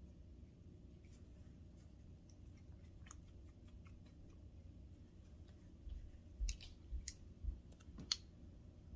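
Faint clicks and taps of small metal parts being handled as a screw is fitted into a sewing machine's clutch assembly, with a few louder knocks in the last three seconds.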